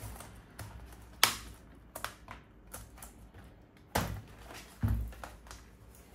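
Scattered plastic clicks and taps of a laptop's case and keyboard being handled and pressed into place, with two duller knocks about four and five seconds in.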